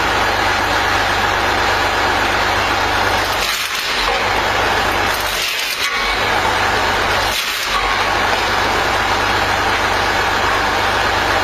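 Engine running steadily, driving a homemade car-part log splitter's spinning steel drum. Three times, a couple of seconds apart, wood cracks and splinters against the spinning drum as a log is split, and each time the engine's hum briefly dips.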